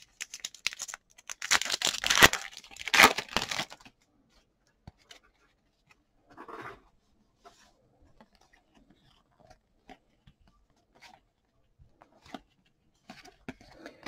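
Packaging of a trading-card hobby box or pack being torn open: a loud ripping that lasts about two and a half seconds, starting a second or so in. It is followed by faint, scattered handling clicks and rustles.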